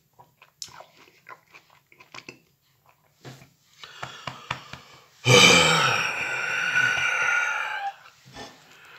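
Soft chewing and wet mouth sounds from eating mandarin segments, then about five seconds in a long, loud burp that lasts over two seconds and fades out.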